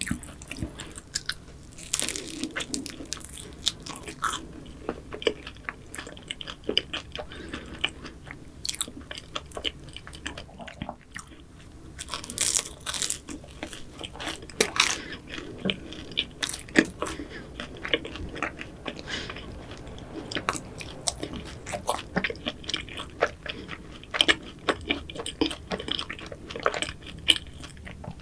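A person biting into and chewing pastry close to the microphone, with irregular crisp crunches.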